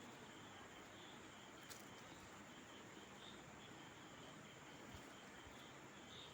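Near silence: a steady faint hiss of room tone, with faint high chirps now and then.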